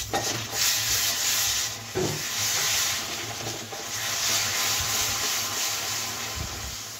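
Grated jaggery being stirred in a kadhai over the heat with a spoonful of water: a steady scraping rub of the stirrer against the pan as the jaggery melts.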